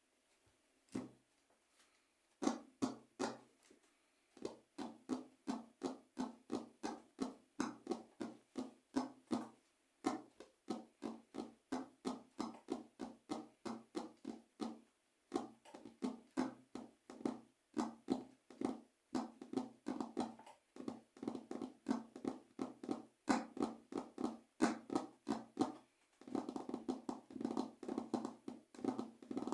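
Fingers tapping out a rhythm, about three taps a second, with short breaks about ten and fifteen seconds in; near the end the taps come faster and closer together.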